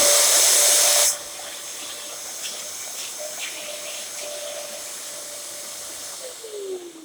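Dyson DC07 upright vacuum cleaner running, its motor holding a steady whine under rushing air. The loud rushing air drops off sharply about a second in, and near the end the whine falls in pitch as the motor winds down.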